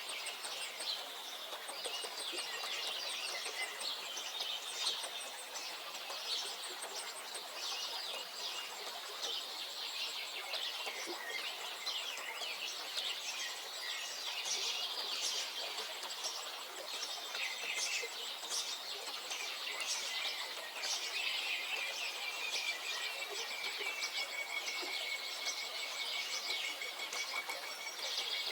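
Several wild birds singing and chirping together in a dense chorus of short, overlapping calls, with a thin high steady trill behind them. One long whistled note runs for several seconds near the end.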